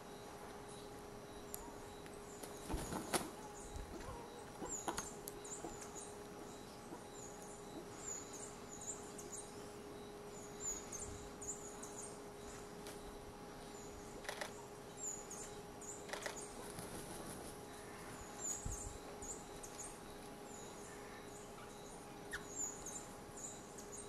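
Tropical forest background: a steady faint hum under a run of short, high chirping notes from small birds or insects that repeat every second or so. A few sharp clicks or knocks stand out, the loudest about three seconds in.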